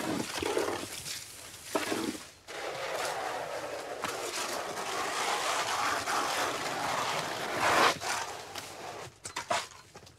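Shovels scraping and scooping through sand and wet lime mortar as it is mixed by hand. There are short swishes at first, then one long scrape in the middle that dies away near the end.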